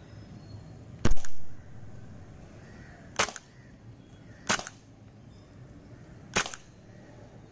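Tokyo Marui HK USP Compact gas blowback airsoft pistol firing four single shots, one to two seconds apart, each a short sharp crack as the slide cycles. The first shot is the loudest.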